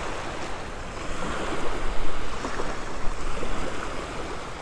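Small surf breaking and washing up a sandy beach, a steady wash that swells briefly about two seconds in.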